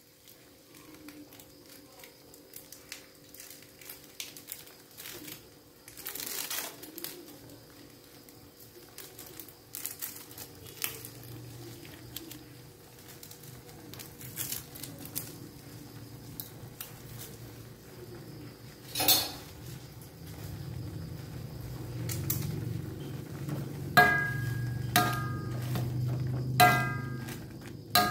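Instant noodle soup coming to the boil in an aluminium wok on a gas stove, a low steady rumble that grows through the second half. Near the end a metal ladle knocks against the wok a few times, each clank ringing briefly.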